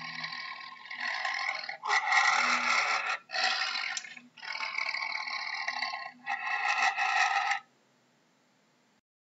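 Tiger growling in about five long bouts with short pauses between them, stopping a little before the end.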